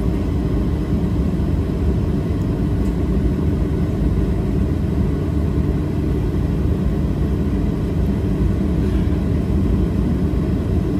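Steady low rumble of a jet airliner, even and unbroken.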